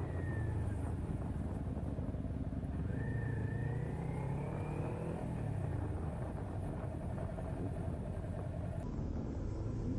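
Motorcycle engine running and wind rumble on a bike-mounted camera while riding along a highway. The engine note dips and then climbs about three to five seconds in.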